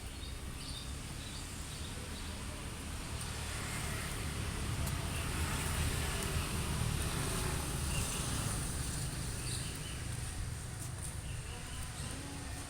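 Steady low rumble, like a vehicle running, that swells slightly in the middle, with faint short higher sounds over it.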